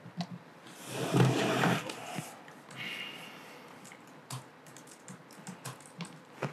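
Scattered key taps and clicks on a MacBook laptop keyboard. About a second in there is a louder, breathy rush of noise lasting about a second.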